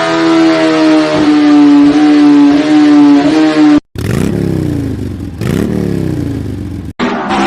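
Motorcycle engines with loud aftermarket silencers revving, in short clips joined by abrupt cuts: first an engine held at high revs with a steady, slightly sinking pitch, then revs rising and falling.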